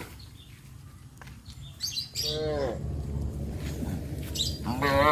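Cattle calling in two short calls, one about halfway through and one near the end, with birds chirping and a steady low rumble underneath.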